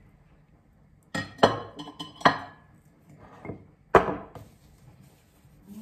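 Kitchen jars and dishes clinking and knocking as they are handled on the counter: four sharp clinks between about one and two and a half seconds in, a softer pair a little after three seconds, then one loud ringing clink at four seconds.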